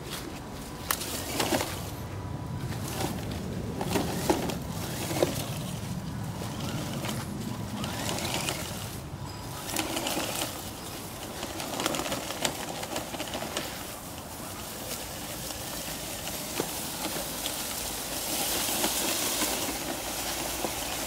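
Toy six-wheeled RC pickup truck crawling over dry leaf litter and twigs, with crackling leaves and scattered sharp snaps under its wheels.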